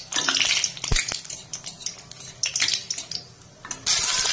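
Metal spatula clinking and scraping in an aluminium kadai while whole spices fry in hot mustard oil. Near the end, chopped onion goes into the oil and sets off a loud sizzle.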